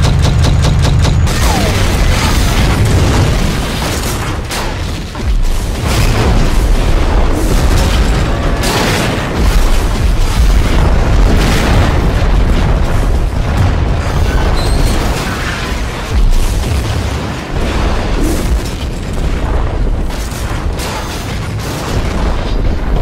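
Repeated explosion booms with heavy low rumble, one after another, laid over background music.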